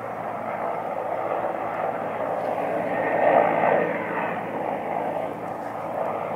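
Helicopter flying overhead at a distance: a steady rushing engine-and-rotor drone that swells about three seconds in.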